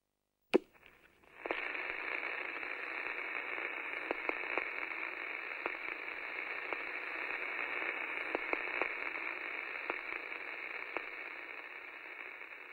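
Radio static: a steady, narrow-band hiss with scattered crackles, starting just after a single click about a second in and slowly fading near the end.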